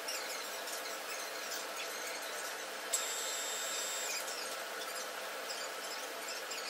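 Vertical milling machine running steadily while holes are drilled in a PVC tube. About three seconds in there is a brief high squeal that lasts about a second.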